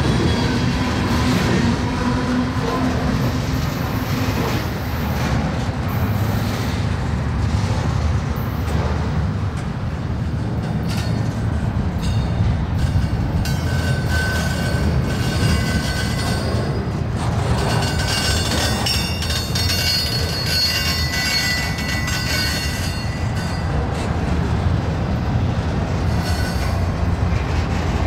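Freight train rolling past: a steady rumble of railcar wheels on the rails, with thin high-pitched wheel squeals coming and going about halfway through.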